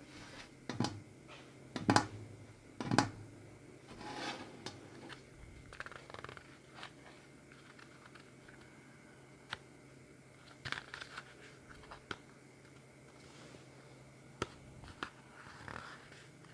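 Hands opening a small package: scattered clicks, scrapes and light rustling, with two louder knocks about two and three seconds in.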